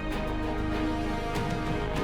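Background music: steady held instrumental tones with a light percussive beat.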